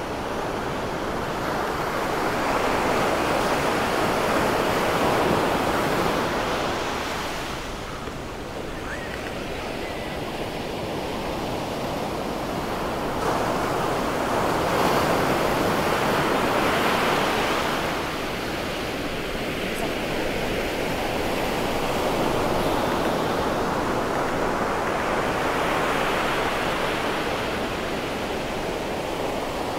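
Ocean surf breaking on a sandy beach: a steady rushing wash that swells and fades about every ten seconds as waves roll in.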